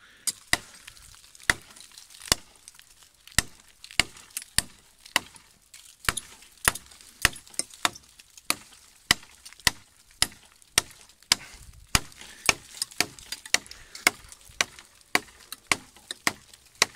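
Lovaglio RS7 large fixed-blade knife chopping into a dead, dry oak branch: a long run of sharp blade strikes on tough wood, about two a second, a little faster after the first few seconds.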